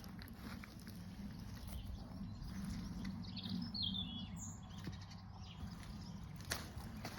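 A small bird singing a short twittering phrase about halfway through, over a steady low hum. There is a single crunch near the end.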